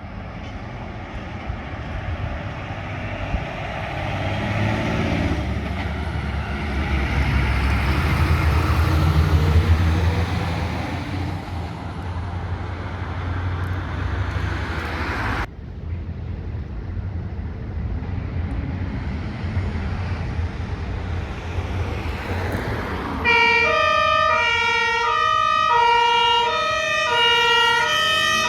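Heavy fire-engine engines running and growing louder over the first ten seconds, breaking off abruptly about fifteen seconds in and followed by more vehicle noise. From about twenty-three seconds in, a loud two-tone fire-engine siren alternates steadily between two pitches.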